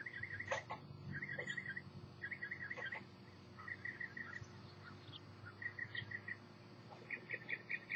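An insect calling in short pulsed trills, each about half a second long, repeated six times at uneven gaps of one to two seconds, over a steady low hum.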